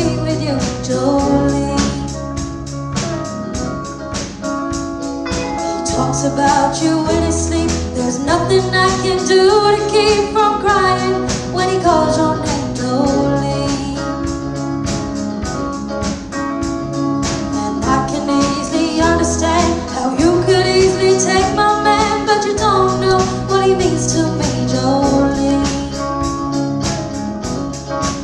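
A live band plays a song on drums, bass, electric guitars and keyboard, with singing over a steady drum beat.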